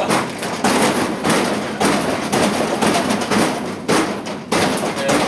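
A vending machine being struck over and over to knock loose a stuck snack: a steady run of heavy thumps, about one every two-thirds of a second.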